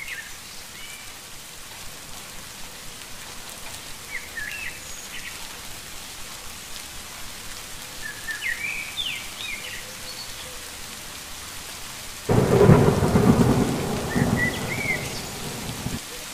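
Steady heavy rain with a sudden loud thunderclap about twelve seconds in, rumbling on for a few seconds before fading.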